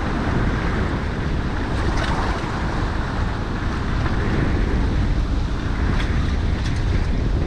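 Sea water washing and sloshing through gaps between shoreline boulders, with wind buffeting the microphone in a steady low rumble. A couple of faint clicks stand out, about two seconds in and again near six seconds.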